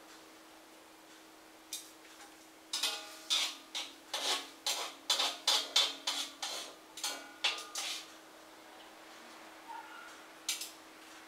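A metal utensil knocking and scraping against metal cookware: a quick run of about fifteen clinks, some with a brief ring, starting about three seconds in and lasting about five seconds.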